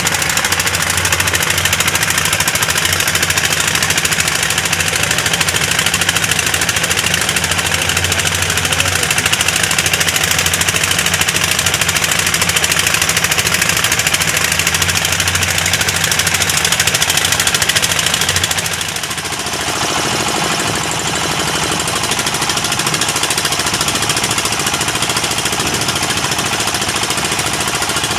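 Fishing boat's diesel engine running steadily while under way. About two-thirds of the way through, its sound changes and drops a little in level.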